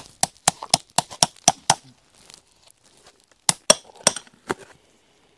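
Cardboard packaging tube being pried and torn open by hand: a quick series of sharp clicks and rips, about four a second for the first two seconds, then a few more tearing snaps after a short pause.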